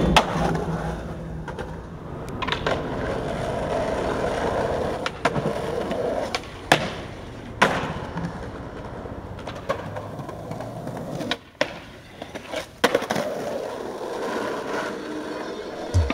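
Skateboard wheels rolling on pavement, broken by several sharp clacks of the board popping and landing.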